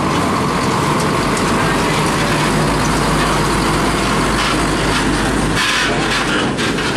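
Diesel engine and tyres of a UD Nissan Diesel tractor unit hauling a flatbed trailer loaded with steel coils as it drives slowly past close by. A low engine hum drops away about five and a half seconds in as the cab moves on.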